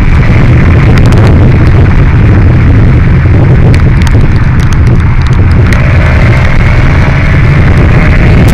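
Loud, steady wind buffeting on the microphone of a BMW S1000 XR motorcycle ridden at speed, overloading the recording, with the bike's engine and road noise underneath.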